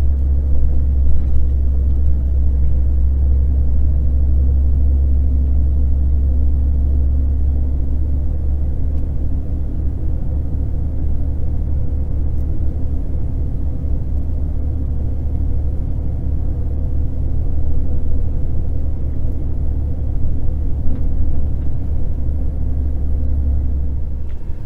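Car driving at a steady pace, heard from inside the cabin: a constant low rumble of road and engine with a faint steady engine drone above it.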